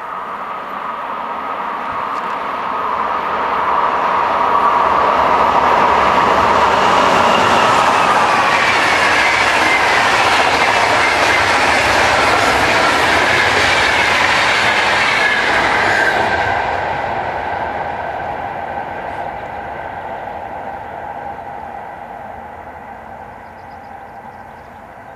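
Finnish VR InterCity train of double-deck coaches, hauled by an Sr1 electric locomotive, passing on the rails. It builds over about five seconds and stays loud for about ten, with high tones that slide downward as it goes by, then fades away.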